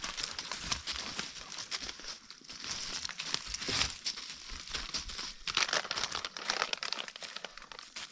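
Irregular rustling and crunching through dry forest litter and brush underfoot, in uneven bursts of small crackles and snaps.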